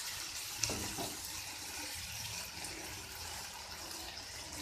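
Cauliflower, potato and peas with tomato purée sizzling steadily in a frying pan over a high flame while a spatula stirs them, with one light knock of the spatula under a second in.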